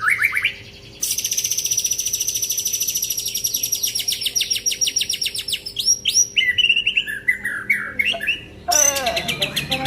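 Songbird singing: a long, fast trill of rapidly repeated high notes, then a run of varied whistles and harsher notes, and another quick trill near the end.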